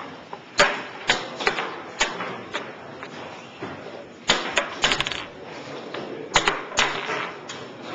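Rapid, irregular clicks and knocks of chess pieces being picked up and set down on a roll-up board in fast blitz play, a few of them coming in quick clusters.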